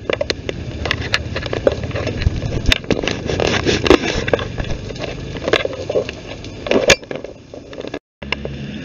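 Handling noise from a phone being swung about in the hand: rubbing, crackling and many knocks on the microphone, over a low rumble.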